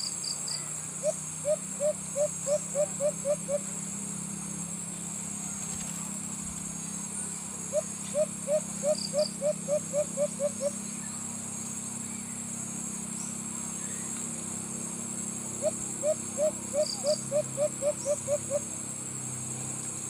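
White-eared brown dove calling: three runs of about eight short, low cooing notes, each run speeding up slightly toward its end, several seconds apart. A steady high insect drone runs beneath.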